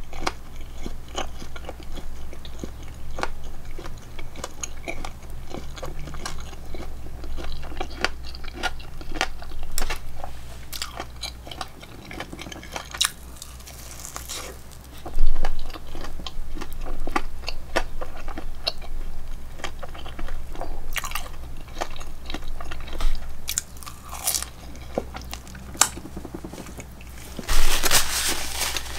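A person chewing and biting food close to the microphone: many small irregular clicks and crunches over a low steady hum, with one louder sharp knock about halfway through and a louder rustling stretch near the end.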